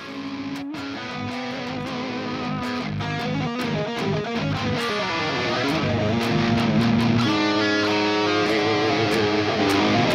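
Electric guitar playing riffs, fading in and growing steadily louder over the first six seconds, then holding level.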